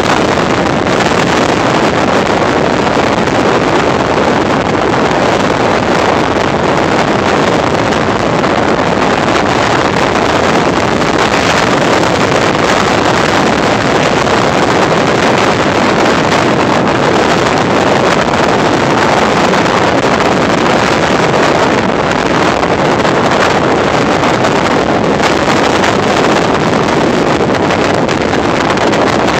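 Steady, loud wind noise rushing over a phone's microphone.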